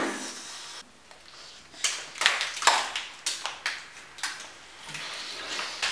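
Whipped-cream pie, with ketchup and mayonnaise on it, squelching as it is pushed and rubbed into a face: a quick run of wet smacks and squishes in the middle.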